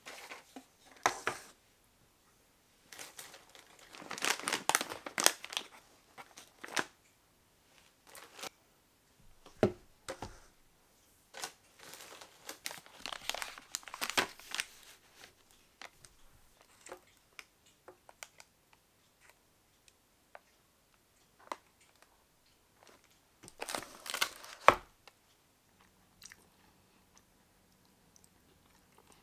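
Plastic snack packaging crinkling in several bursts as snacks and a drink carton are handled and set down on a table, with a few sharp knocks. Near the end, faint clicks and eating sounds as noodles are eaten with chopsticks from a paper bowl.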